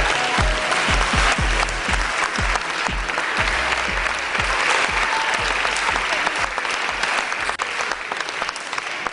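Audience applauding over music with a bass beat about twice a second. The beat fades out past the middle, leaving the applause thinning to separate claps near the end.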